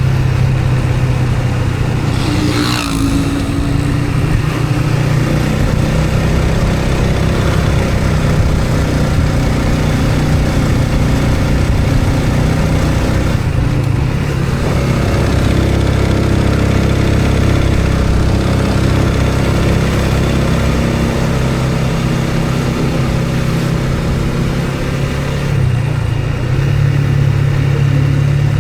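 A motor vehicle's engine running steadily on the road. Its note shifts about halfway through and again near the end, with a brief hissing sweep about three seconds in.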